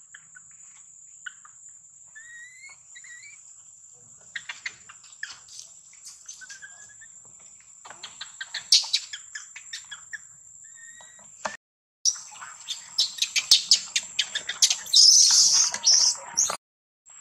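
Outdoor ambience of birds chirping over a steady high-pitched insect whine. After a short break about two thirds of the way in, dense clicking and crackling noise takes over.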